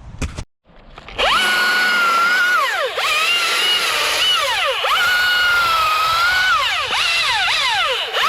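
Two-stroke chainsaw running at high revs. Its pitch drops sharply and climbs back several times. It starts abruptly about a second in, after a short knock.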